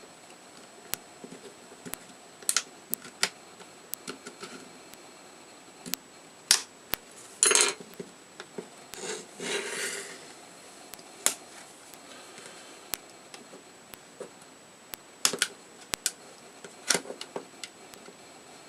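Scattered small clicks and taps, with two short scrapes about halfway through, from a Nook Simple Touch e-reader's plastic case and small parts being handled and worked apart by hand.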